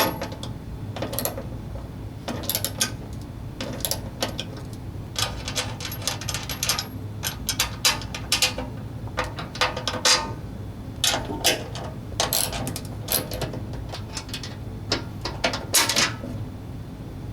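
Ratchet socket wrench clicking in short repeated runs while the bolts holding the snow blower's skid shoe are loosened and backed out.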